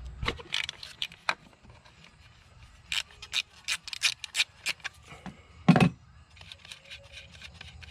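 Hands pulling rubber hoses and plastic fittings off a VW 1.8T engine: scattered clicks, scrapes and rubbing, one louder knock near the end, then a run of quick light clicks.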